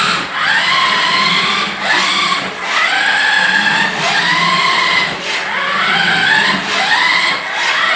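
Electric motor of a 1/10-scale Lamborghini Gallardo RC car whining up in pitch again and again as the throttle is punched in short bursts, roughly once a second.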